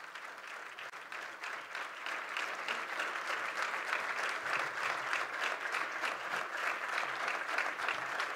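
Audience applauding, the clapping growing louder about two seconds in.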